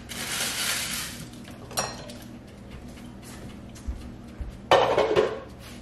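Kitchen clatter of dishes and utensils: a short hiss at the start, a single clink near two seconds in, and a loud rattle of dishes about five seconds in.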